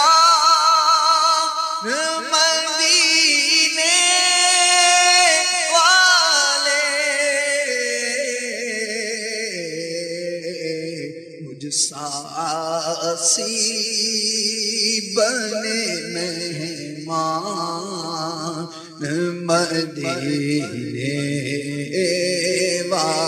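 Vocal naat recitation in long, drawn-out melismatic notes with a wavering pitch. The melody sits high at first and drops to a lower register about ten seconds in, with short breath breaks after that.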